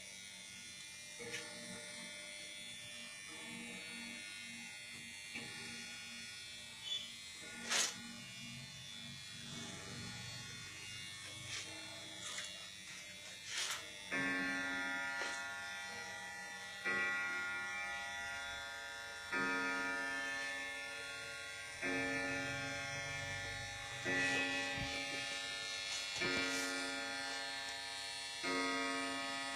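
Antique J.W. Benson grandfather clock striking, a ringing stroke of the same note about every two and a half seconds from about halfway in, each stroke dying away slowly. Before the strikes there are a few sharp clicks and knocks.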